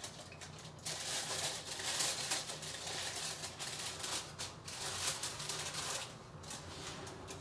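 Aluminium foil being crumpled and handled, crackling irregularly, easing off about six seconds in, over a low steady hum.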